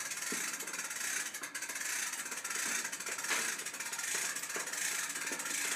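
Light, irregular metallic ticking and rattling from the steel corral panels and the hand winch's cable and chain as the panels are lifted, over a steady hiss.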